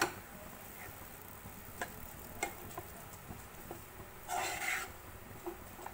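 A metal spoon clicking and scraping against a nonstick kadai as thick pork masala is stirred, over a faint sizzle from the pan, with one longer, louder rasp a little past four seconds in.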